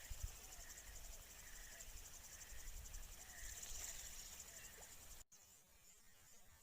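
Faint, steady high-pitched chirring of insects. It drops off abruptly about five seconds in, leaving a quieter, thinner version of the same background.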